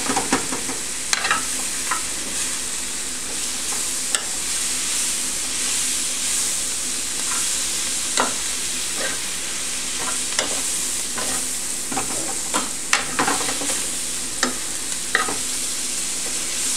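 Brussels sprouts frying in a skillet on high heat, a steady sizzle in melting vegan butter and lemon juice. A metal utensil stirs and tosses them, with irregular clicks and scrapes against the pan.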